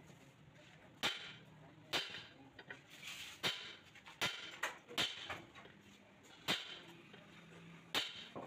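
Hammer blows driving a new bush into the bore of a Mahindra 575 DI tractor's front axle, fitted in place of worn-out bushes: about eight sharp metal knocks at uneven intervals, with fainter taps between.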